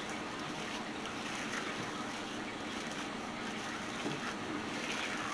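A spatula stirring and scraping thick cookie dough, chunky with chopped walnuts and coconut flakes, around a glass mixing bowl, a soft continuous scraping and rustling.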